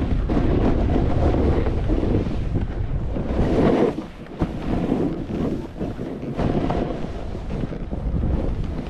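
Wind buffeting the camera microphone as a Never Summer Proto Ultra snowboard rides over chopped, wind-packed snow, its base and edges hissing and scraping. The rush eases briefly about four seconds in, then picks up again.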